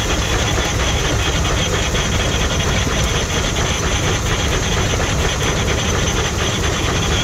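Steam traction engine running steadily, driving a generator through a long flat belt: an even, continuous machine noise with no change in pace.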